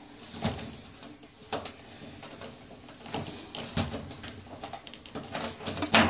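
Scattered plastic clicks, knocks and scraping as the lid-switch plug and its wiring clips are worked loose from under a washing machine's control panel by hand.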